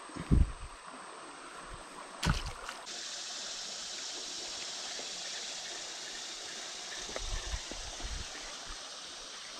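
Creek water running steadily, the rushing growing louder about three seconds in. A loud low thump comes right at the start, a sharp knock about two seconds in, and softer low bumps near the end.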